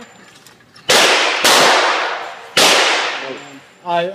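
Three gunshots, the first about a second in, the second half a second after it and the third about a second later, each with a long echoing decay off the walls of an indoor shooting range.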